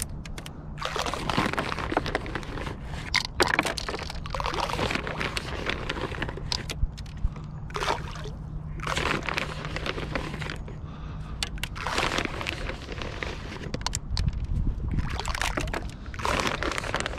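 Handfuls of carp bait scattered from a boat, pattering and splashing onto the lake surface, again and again about every three seconds.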